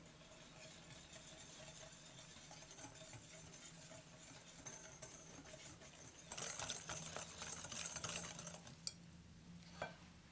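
Wire balloon whisk stirring flour and corn starch into egg yolks and sugar in a glass bowl: faint soft scraping at first, then faster, louder whisking from about six seconds in, with two sharp clicks of the whisk against the glass near the end.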